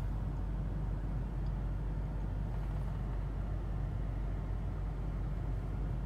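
Volvo XC90 engine idling strong and steady, heard from inside the cabin, running again after its failed fuel pump electronic module (PEM) was replaced.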